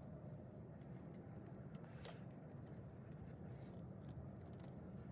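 Quiet room tone with a low steady hum and faint small clicks from hand work with tools, one sharper click about two seconds in.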